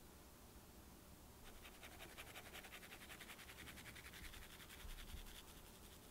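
Fine-mesh sieve being shaken over a glass bowl, sifting a flour mixture through the mesh with a quick, even run of soft rasping strokes. It starts about a second and a half in and stops near the end.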